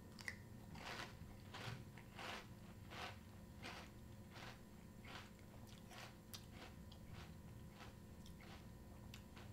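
A mouthful of CinnaGraham Toast Crunch cereal squares in milk being chewed, a faint crunch about every two-thirds of a second, growing weaker after the first few seconds.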